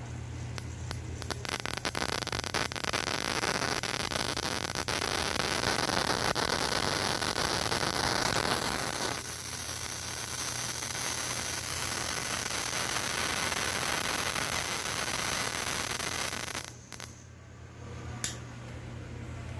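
A loud, steady hiss that runs for about sixteen seconds, thinning in its lower part about nine seconds in, then cutting off suddenly, over a steady low hum.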